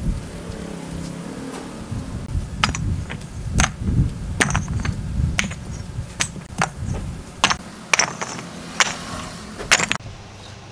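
A series of sharp knocks and taps, roughly one a second and uneven in loudness, over a low steady rumble, typical of hand work on brick and cement.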